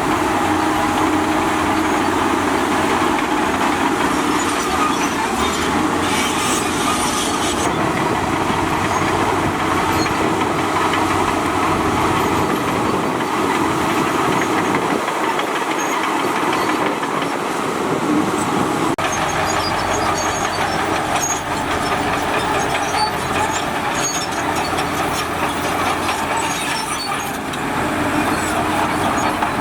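Heavy earthmoving machinery at work: a diesel engine running steadily under a continuous metallic clatter, as from a bulldozer's steel tracks.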